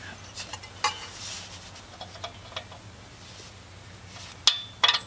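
Scattered small metallic clicks and clinks as an O2 sensor is worked loose from the exhaust pipe by hand, with two louder sharp clicks close together near the end.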